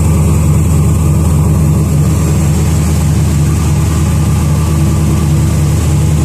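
GM LS V8 truck engine idling steadily on its first start with a freshly fitted aftermarket intake manifold and injectors.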